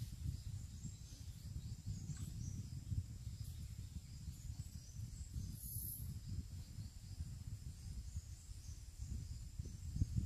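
Outdoor creek-bank ambience: an unsteady low rumble of wind on the microphone, with a faint steady insect hum above it.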